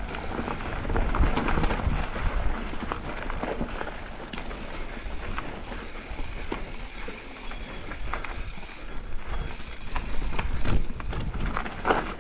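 Mountain bike descending a rough trail: a steady rumble of tyres over dirt and rocks, with irregular clicks and rattles from the chain and frame.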